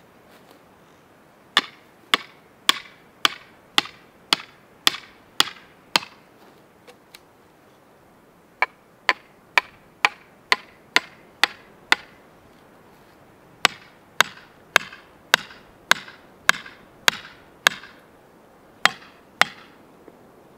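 Hatchet hammering wooden stakes into the ground: sharp wooden knocks about two a second, in three runs of eight or nine blows with short pauses between, then two more near the end.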